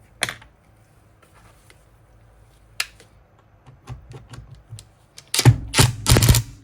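Hand tools clicking and knocking on a chainsaw while its anti-vibration mount bolts are loosened, with scattered single clicks and a loud run of rapid clicking over the last second or so.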